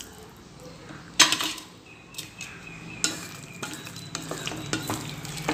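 Wooden spoon stirring cubed ash gourd in water in an aluminium pot, scraping and knocking against the pot, with a sharp knock about a second in and another about three seconds in.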